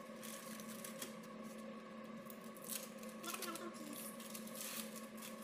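Thin plastic wrapping and disposable gloves crinkling and rustling in short irregular bursts as cheese slices are unwrapped and laid out by hand, over a steady low hum.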